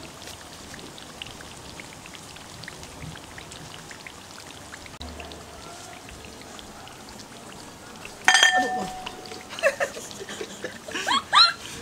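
Fresh chilli-and-pineapple sambal sizzling and crackling in a hot wok after the flame is switched off, a steady hiss dotted with small pops. About eight seconds in there is a loud metallic clank with a short ring, followed by a few short high chirps.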